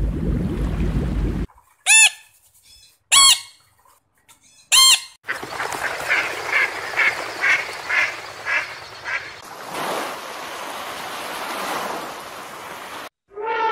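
A low rumble cuts off, then come three loud honking calls about a second apart. Mallard ducks then quack in a run of about nine quacks, roughly two a second, over the wash of water. Near the end only the hiss of surf washing up on a sandy beach is left.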